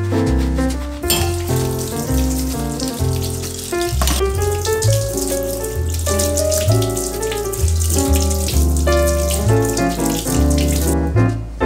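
A tap running water into a sink, steady from about a second in until it stops near the end, under instrumental background music with a bass line.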